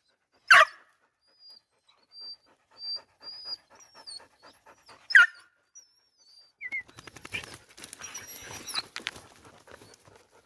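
Hunting dogs at a hollow log den, panting fast, with two short sharp yelps, about half a second in and about five seconds in. Rustling and scuffling follow from about six and a half seconds in.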